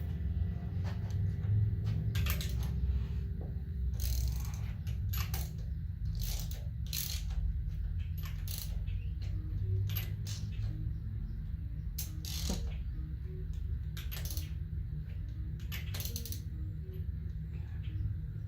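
Scattered light metallic clicks and clinks from a small block 350's rocker arms and pushrods being wiggled and adjusted to find the ones that are still loose, over a steady low hum.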